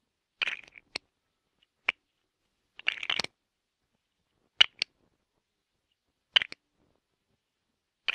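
Plastic Lego bricks clicking and clattering together in about six short, separate bursts, with dead silence between them.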